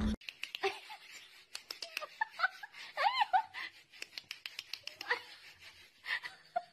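A cat's short, high meows, the clearest about three seconds in, among scattered light clicks and taps.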